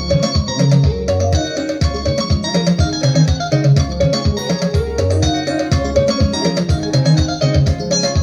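Upbeat instrumental music led by quick, bright plucked guitar lines over a steady bass, with no singing.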